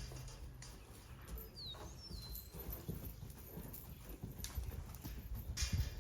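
Faint hoofbeats of a spotted saddle horse moving on arena ground, a stream of uneven low thuds.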